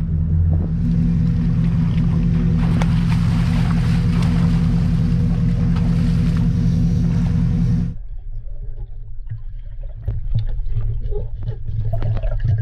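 A pickup truck's engine idling steadily under splashing water. About eight seconds in, the sound cuts suddenly to a muffled underwater recording with irregular clicks and knocks.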